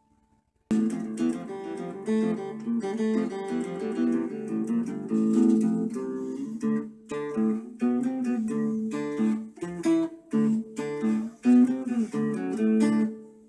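Electric guitar played clean through a small amplifier built into a WWII .30-calibre ammunition can, picking chords and single notes. The playing starts about a second in, after a brief gap.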